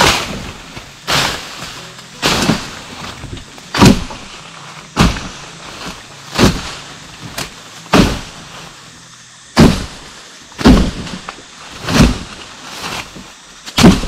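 A series of about eleven heavy knocks, roughly one every second and a bit at uneven spacing, each a sharp strike with a low thud.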